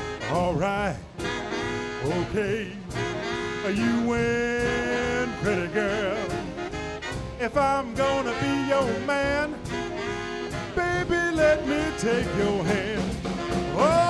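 Live swing big band playing an instrumental passage: saxophones and brass over a steady swing beat on the drums.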